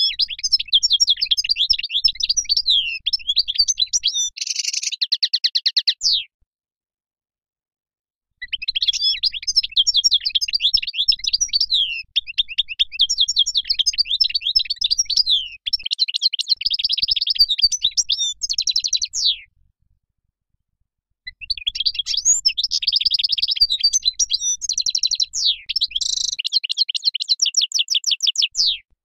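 European goldfinch singing: three long bouts of rapid twittering and gliding notes mixed with fast trills, separated by pauses of about two seconds.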